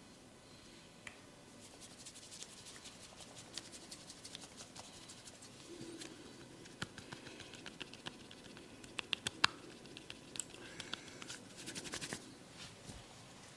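Close-up scratching and rubbing of a barber's fingers on skin and hair during a head and ear massage, with many sharp little clicks. The clicks come more densely about nine seconds in and in a quick cluster near the end.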